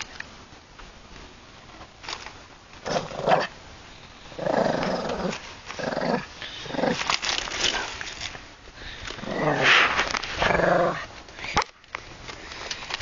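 Shih Tzu growling in play, a string of short growls with a longer, louder one near the end, and a few sharp clicks.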